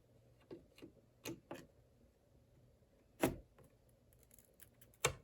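Light plastic clicks and taps as a DDR4 RAM stick is fitted and pushed into a motherboard memory slot, with a louder click about three seconds in and another near the end.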